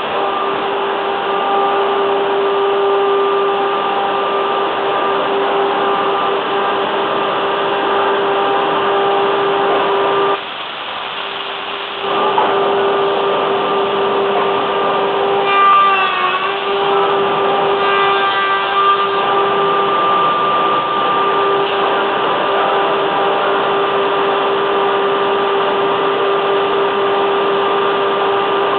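Woodworking machinery on a plank glue-jointing line running with a steady drone and a constant tone. The drone drops away for a second or so about ten seconds in, and its pitch wavers briefly around sixteen seconds in.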